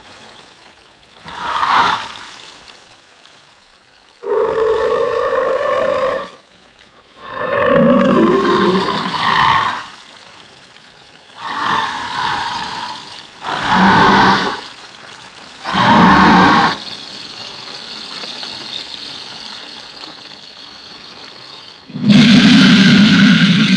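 A string of loud animal roars given as alligator roar sound effects: about seven separate roars, each a second or two long, with short lulls between them. A quieter, steadier stretch comes before a heavier, deeper roar near the end.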